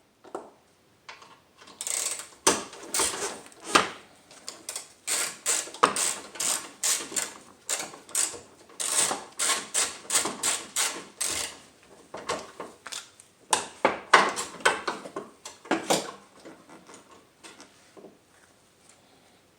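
A 3/8-inch ratchet clicking in repeated runs of short strokes as it loosens the 10 mm bolts holding a hood latch, the clicks thinning out near the end.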